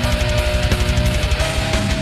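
Background heavy metal music with distorted guitars and a fast, driving beat.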